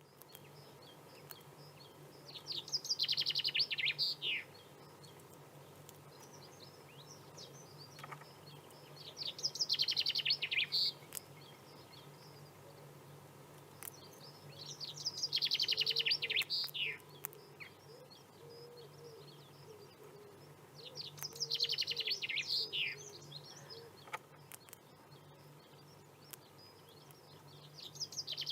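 A songbird singing the same song over and over, about five times at roughly six-second intervals: each song is a fast run of high notes ending in a few quick downward sweeps. A faint steady low hum sits underneath.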